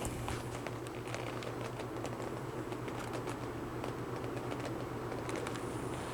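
Vintage 24-inch Pencrest reversible box fan running on its low speed, blowing forward: a steady low motor hum under an even rush of air. Scattered light irregular clicks sound over it.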